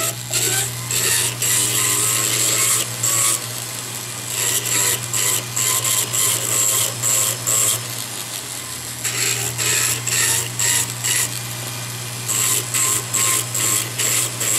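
A jeweller's rotary handpiece runs with a steady motor hum while its bur grinds inside a metal bezel cup. The bur cuts in clusters of quick short strokes with brief lulls. The bur is enlarging the bezel seat so the cabochon can sit down in it.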